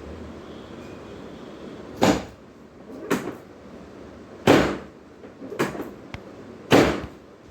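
Five sharp, sudden thuds about a second apart during a chiropractic adjustment of a patient lying on a treatment table; the first, third and last are the loudest.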